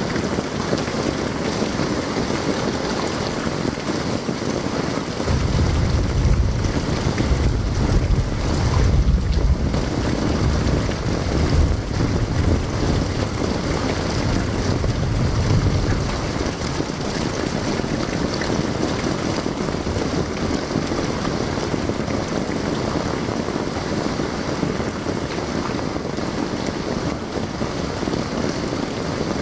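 Heavy rain pouring down steadily onto muddy ground and puddles. A low rumble joins it from about five seconds in and fades out around sixteen seconds.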